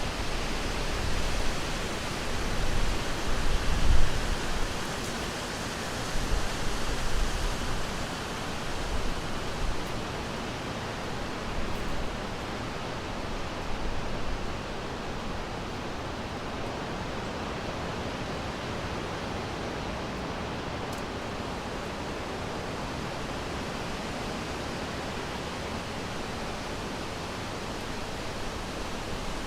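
Wind blowing through forest trees, a steady rushing hiss. It gusts in the first ten seconds or so with low rumbling swells, then settles into an even rush.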